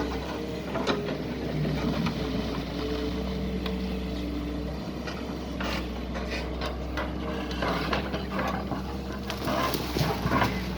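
Doosan DX140 excavator's diesel engine running steadily, with scattered knocks and clatter that get busier near the end.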